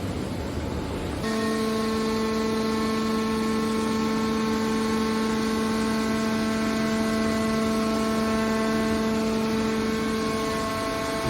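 Hydraulic baler's pump unit running: a low rumble that, about a second in, changes suddenly to a steady pitched hum that holds.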